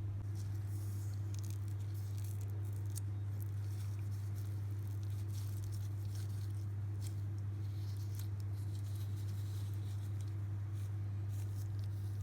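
Light ticks and rustles of hands working in the kitchen, scattered and faint, over a steady low hum that is the loudest sound throughout.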